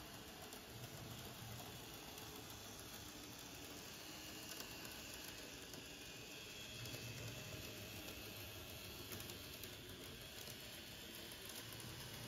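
Model train of a JR West DE15 diesel locomotive with a Russell snow plow running along the layout's track: a faint steady whirr and hiss, with a few light clicks and a low hum that comes and goes.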